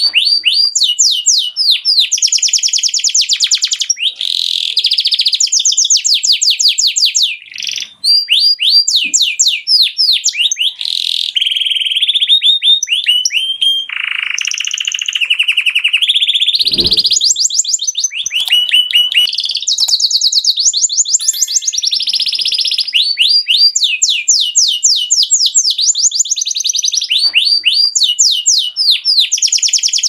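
Canary singing a long, continuous song: fast runs of rapidly repeated high notes alternating with steady rolling trills, with a brief break about eight seconds in.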